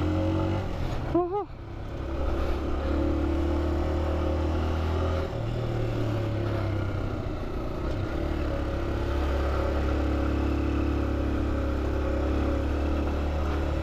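Honda TMX 125 single-cylinder four-stroke motorcycle engine running steadily on the move. Its note steps up about five seconds in and settles back down a few seconds later.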